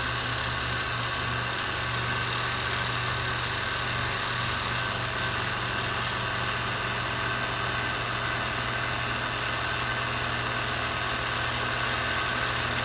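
Vintage Husqvarna Viking sewing machine driven by its 1.5-amp Westinghouse motor, running at full speed with the foot pedal held all the way down. The motor's hum and the machine's mechanism run at a steady speed.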